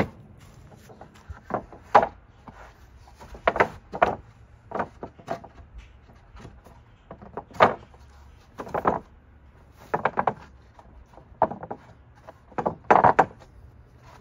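Freshly cut tongue-and-groove wooden boards being test-fitted by hand: irregular wooden knocks and short scrapes as the tongue is pushed and slid into the groove.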